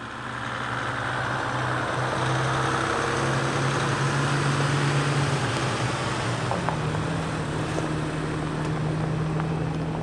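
Off-road vehicles driving past one after another on a dirt road: a Jeep Wrangler, then a Toyota Tacoma pickup towing a small camper trailer, engines running at low speed over a hiss of tyre noise. The sound builds over the first couple of seconds, and a second, slightly higher engine note takes over about two-thirds of the way in.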